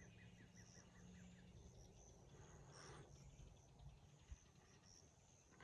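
Near silence, with faint, high, repeated insect chirping, like crickets.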